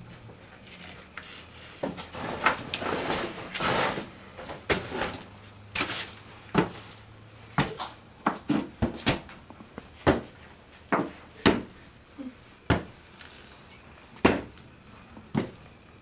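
Irregular knocks, clacks and scraping of objects being handled and moved in a small room, with a faint steady hum that stops about halfway through.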